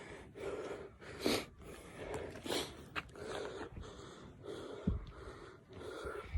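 A man's heavy breathing, quick even in-and-out breaths: he is out of breath from climbing a steep trail. A couple of brief low thumps come near the end.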